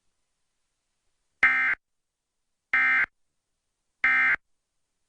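Emergency Alert System end-of-message data signal: three short, identical buzzing bursts of SAME digital tones, about a second and a half apart. They mark the close of the Required Monthly Test.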